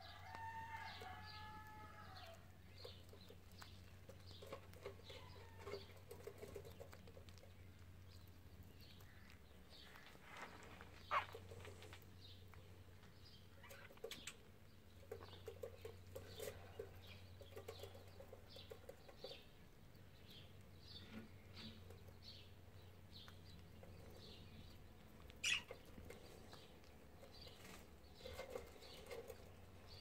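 Cockatiels pecking wheat grains from a china saucer: quiet, irregular beak clicks on the grain and plate, with two sharper, louder taps. A short chirp sounds about a second in.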